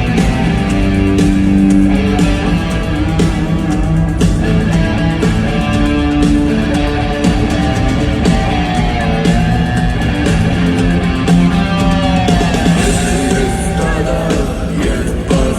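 Rock band playing an instrumental passage live, with guitar over bass and drums.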